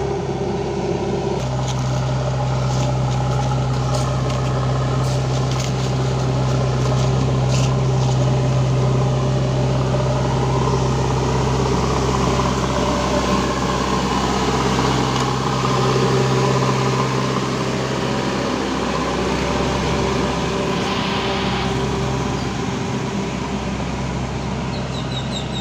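JCB 3DX backhoe loader's diesel engine running at steady revs after revving up, with an even, unchanging note as the machine drives.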